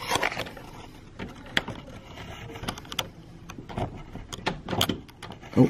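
Locked brass doorknob being picked with a thin rod: irregular small clicks, scrapes and rattles of the metal knob and its latch, with a sharper knock near the end.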